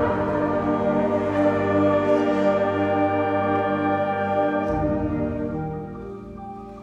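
Student symphonic band playing live, a loud sustained chord from the full wind band. The low instruments drop out about two-thirds of the way through and the sound fades.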